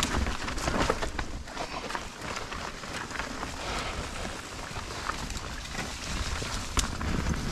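Mountain bike riding down a dirt trail: tyres rolling and crackling over dirt and roots, the bike rattling with many irregular small clicks and knocks, over a low wind rumble on the action camera's microphone.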